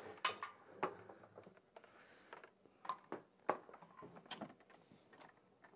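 Faint scattered plastic clicks and knocks, about half a dozen, as the TOTO Neorest RH washlet seat top is lowered and worked into place on the bowl.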